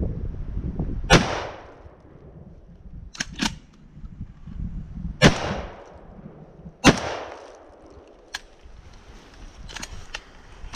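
A 12-gauge semi-automatic shotgun fired three times, about a second in, then twice close together near the middle, each shot a sharp crack with a short ringing tail. Several fainter sharp clicks fall between the shots.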